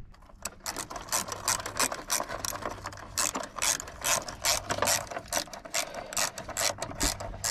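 Socket ratchet wrench clicking in repeated short strokes as the bolts on a newly fitted car battery are tightened. The clicks start about half a second in.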